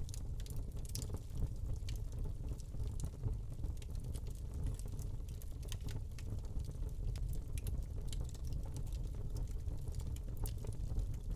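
Wood fire burning in a fireplace: irregular sharp crackles and pops from the burning log, several a second, over a steady low rumble of the flames.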